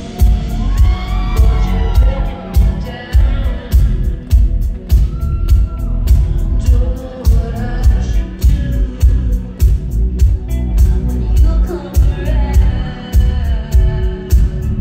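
Live electro-pop band playing over a heavy bass line and a steady kick-drum beat, with a female lead vocal singing over it.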